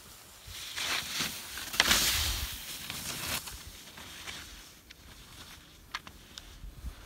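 Alpine skis scraping and carving through chopped mogul snow as a skier turns close past the microphone: a hiss that swells, is loudest about two seconds in, and fades by about three and a half seconds. A few short clicks follow.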